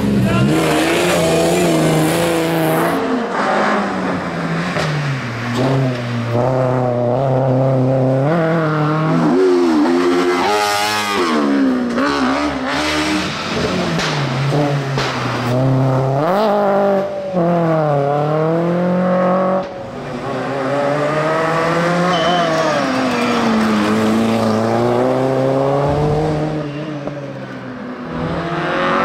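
Hillclimb racing hatchbacks driven hard one after another, their engines revving high and dropping back again and again as they change gear and brake for the bends.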